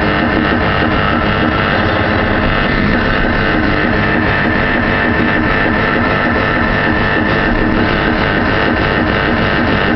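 Rock music with guitar, loud and steady.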